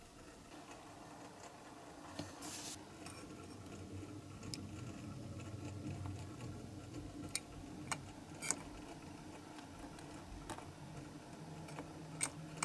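Metal tweezers handling small diecast model-car wheels in a clear cup, giving scattered sharp little clicks and taps, about eight of them at uneven intervals, with a brief rustle a couple of seconds in. A faint low hum runs underneath.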